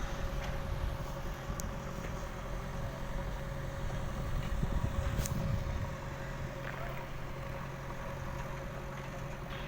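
An engine running steadily, a low, even hum like an idling vehicle.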